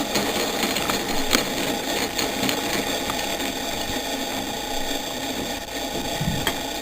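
Screwdriver undoing a small T10 Torx screw from the metal casing of a car radio/CD unit: a steady mechanical ratcheting whirr with a few sharp clicks.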